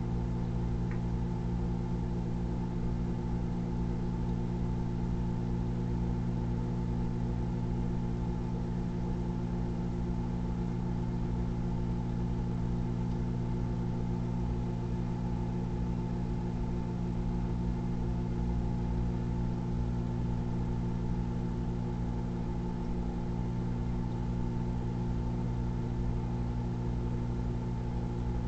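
Microwave oven running on high, a steady low hum with a buzz.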